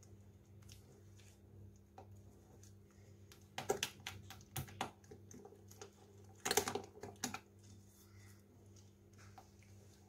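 Spatula stirring thick chocolate batter in a glass bowl, with flour being mixed in. The spatula scrapes and taps against the glass in two clusters of clicks, about four and about six and a half seconds in.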